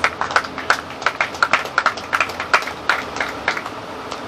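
Scattered hand claps from a few people in a small congregation, irregular and dying away near the end.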